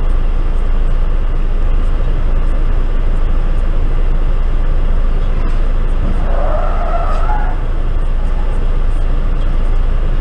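Steady low rumble heard from inside a car, with a wavering tyre screech about six seconds in that lasts about a second and a half, as a car skids at the intersection ahead just before a collision.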